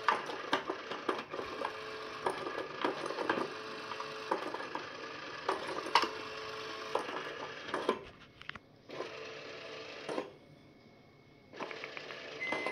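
Small battery-powered motor and gears of a motorised peek-a-boo cat toy running inside its plastic dome, with sharp clicks and taps as a cat paws at the holes. The running stops twice for about a second in the second half, then starts again.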